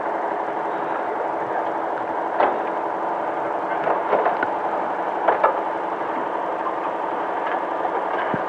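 Steady engine noise with several short, sharp knocks about two and a half, four, five and a half and eight seconds in: the crew knocking at the wheel during a tire change, busting out a spare's hole that won't fit over the hub.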